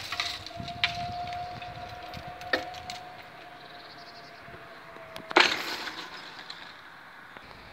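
A steady single-pitched tone held for about five seconds, with a few sharp knocks, then cut off by a loud, short rustling bump of the handheld camera being moved.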